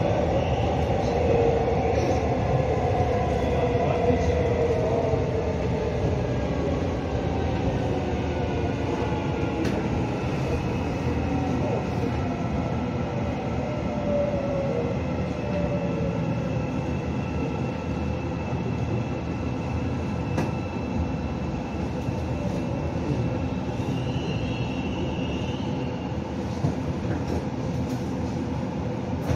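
Seoul Subway Line 4 electric train braking into a station: a steady running rumble with a motor whine that falls in pitch as it slows, and a brief high squeal near the end as it comes to a stop.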